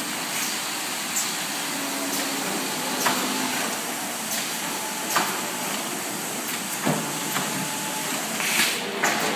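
Freezer back panel forming line running: a steady machinery hiss with sharp metal knocks every couple of seconds, and a short louder hiss near the end.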